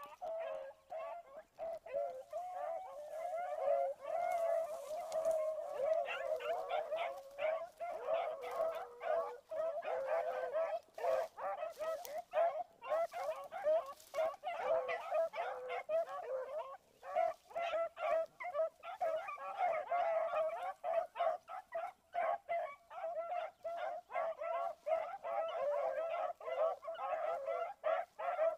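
A pack of rabbit hounds baying together, many overlapping voices in a continuous chorus of short, rapid cries: the dogs are running a rabbit's scent trail.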